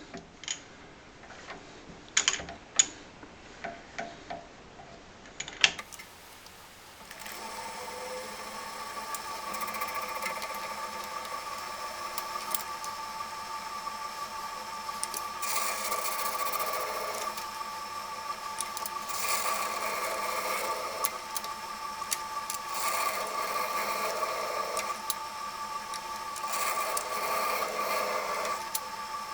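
A few light clicks of tool setup, then a small metal lathe runs at a steady slow speed with an even motor whine while it cuts a 3D-printed plastic knob. A rougher cutting noise swells and fades every three to four seconds.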